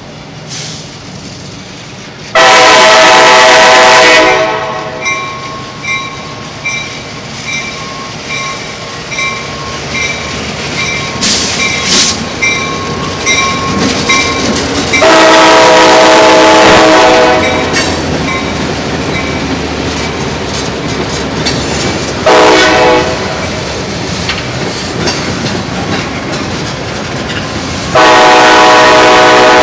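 CSX diesel locomotive passing close by, sounding its horn in the grade-crossing pattern: two long blasts, a short one and a long one. Between the blasts a regularly ringing bell and the steady rumble and clatter of the locomotive and tank-car wheels over the rail joints.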